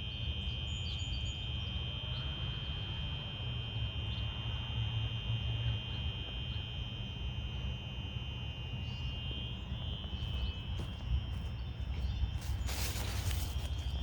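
Two Simplex 4903-9236 fire alarm horns sounding together continuously: a steady, high-pitched tone with a second, slightly different pitch against it, giving an eerie sound, over a low rumble. A short burst of noise comes near the end.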